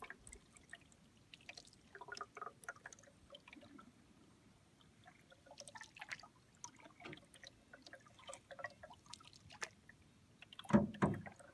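Canoe paddle strokes on calm water: soft dips with water dripping and trickling off the blade, and one louder stroke near the end.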